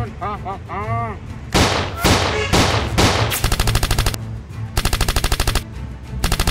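Gunfire sound effects: a warbling pitched effect in the first second, a few single heavy shots, then three short bursts of rapid automatic fire at roughly fifteen rounds a second.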